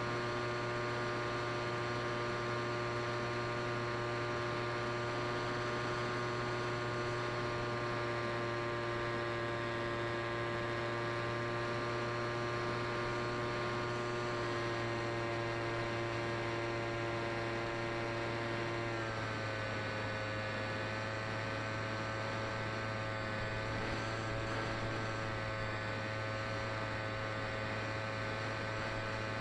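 Electric motor and propeller of a flying wing in flight, heard from on board: a steady droning hum made of several tones. About two-thirds of the way through, several of the tones step down a little in pitch.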